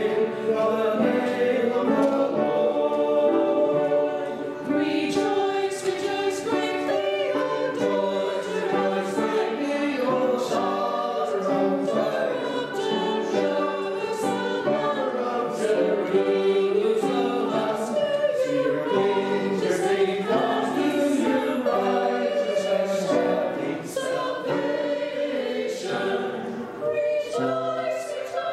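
A choir singing, several voices together in sustained sung notes.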